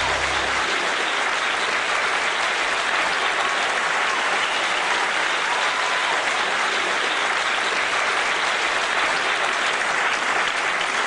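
Concert audience applauding steadily at the end of a song. The band's last low notes die away just after the start.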